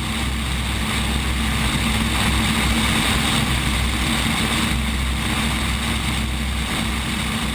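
Propeller airplanes of an aerobatic display team passing overhead: a steady engine noise that swells over the first few seconds and slowly eases off.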